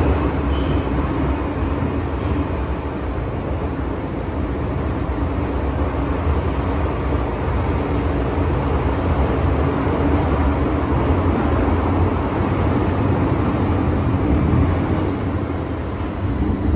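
Inside an MTR M-train carriage (Metro-Cammell electric multiple unit) under way: a loud, steady rumble of the wheels on the rails and the running gear, with a faint high whine now and then.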